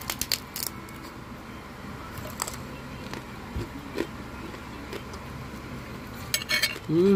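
Close-up crunching of crispy chicharon (deep-fried pork rind) being bitten and chewed: a quick run of sharp crackling crunches at the bite, scattered crunches while chewing, and another cluster of crunches near the end. At the very end comes a short hummed "mm".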